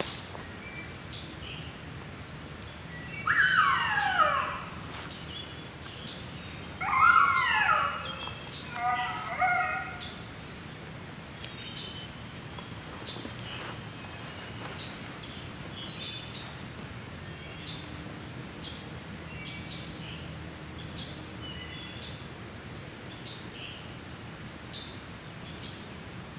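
Electronic predator call playing a recorded coyote pup howl: two howls falling in pitch a few seconds in, then a quick run of yips. Afterwards only songbirds chirping.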